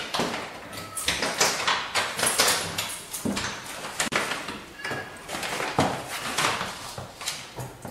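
Someone working at an apartment door: an irregular run of rustling, scraping and knocking noises from handling the door and its lock, a few each second.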